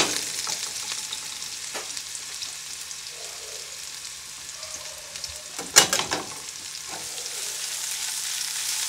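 Scallions and cilantro stems sizzling in olive oil in a nonstick frying pan over a low gas flame: a steady frying hiss. A few sharp knocks break it, the loudest right at the start and a cluster about six seconds in.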